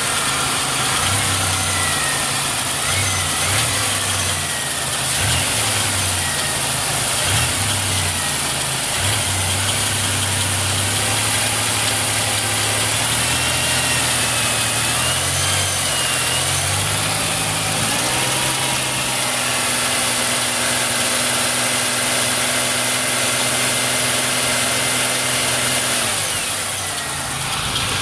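1999 Pontiac Grand Prix running, its engine note shifting and stepping up in pitch about eighteen seconds in. A faint, wavering high-pitched squeal comes and goes over it. This is the unexplained noise the car makes on left turns or sitting nose-up, which goes with repeated failures of the passenger-side wheel hub assembly.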